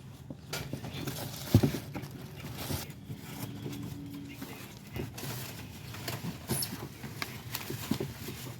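Items being rummaged through and moved about: scattered knocks, clicks and rustles of objects being handled, with one sharp knock about one and a half seconds in.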